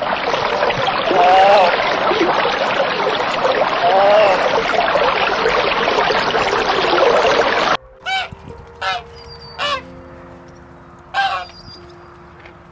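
Geese honking: a loud, dense clamour of many overlapping calls that cuts off abruptly about eight seconds in. It is followed by single honks spaced a second or so apart.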